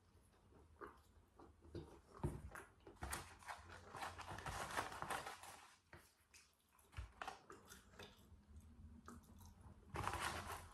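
Close-miked chewing of French fries: soft, wet mouth sounds and small crunches in short spells. Near the end the cardboard fries carton rustles as a hand goes into it.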